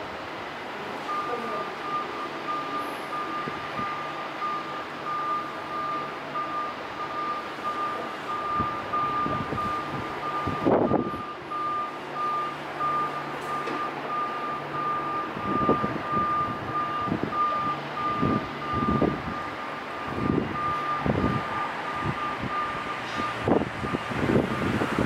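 Electronic warning beeper sounding a steady string of short high beeps, like a vehicle's reversing alarm, starting about a second in, over outdoor background noise with short irregular low rushes.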